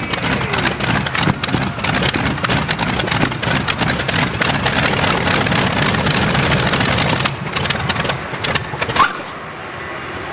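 Radial aircraft engine of a modified pulling tractor running flat out under load, with a dense crackling exhaust. About nine seconds in it drops away sharply, leaving a quieter steady rumble.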